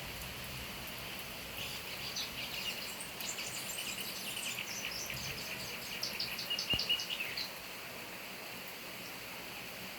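Double-collared seedeater (coleirinho) singing a fast, twittering song of rapid high notes that starts about a second and a half in and stops about two seconds before the end. Steady hiss of rain throughout.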